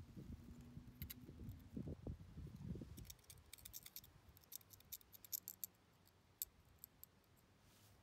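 Faint handling of a wooden handle as an obsidian blade is pushed into its hole, with soft low rubbing for the first few seconds, then a run of small, sharp, high clicks and ticks as the stone blade is seated in the wood.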